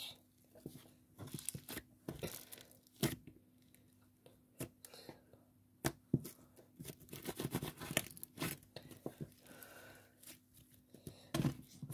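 Thick pink slime being stretched, folded and squeezed by hand as lotion is worked into it, giving irregular sticky crackles, clicks and small pops.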